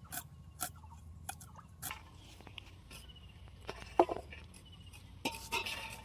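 Scattered clinks and knocks of cooking utensils against pots and dishes, with a single louder knock about four seconds in.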